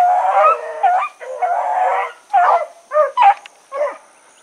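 Rabbit dogs baying on a rabbit's trail: long overlapping howling calls for about two seconds, then a string of shorter separate barks that stops near the end.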